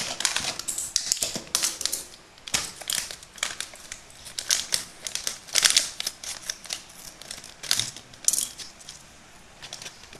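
Scissors snipping through a cardboard box and then its inner plastic pouch, with crinkling and rustling of the packaging as it is handled, heard as irregular crisp clicks and rustles.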